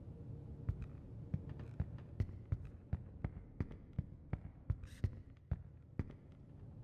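A steady series of short, sharp knocks or taps, about three a second, over a faint low rumble.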